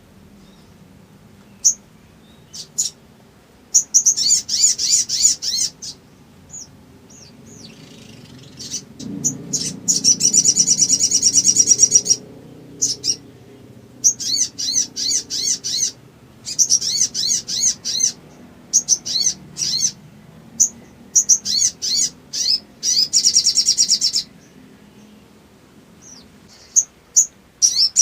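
Brown-throated sunbird (sogon) singing hard in high, sharp chips and rapid chittering trills, with bursts of a few seconds broken by short pauses. The song is a lure call meant to stir rival birds to sing.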